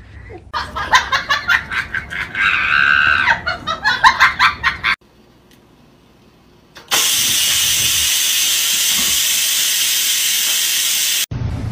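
Electric pressure rice cooker venting steam with a loud, steady hiss for about four seconds, starting and stopping abruptly. Before it come a few seconds of rapid, choppy sound, then a short lull.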